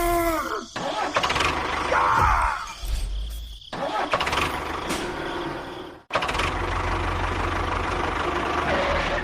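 A vehicle engine running, in short edited segments that cut off abruptly about a second, four seconds and six seconds in.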